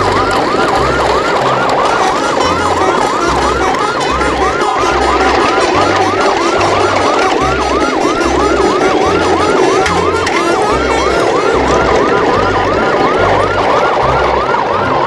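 A siren in fast yelp mode, rising and dropping about three times a second without a break, over a low, pulsing bass beat.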